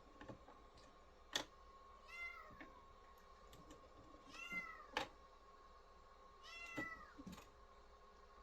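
A house cat meowing three times, each meow a rising-then-falling call about half a second long. Two sharp knocks come between the meows, and a faint steady high hum runs underneath.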